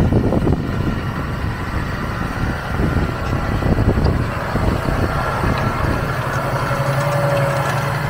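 Massey Ferguson 7718 S tractor's six-cylinder diesel engine running under load while ploughing, passing close by. About five seconds in its note turns steady and clearer.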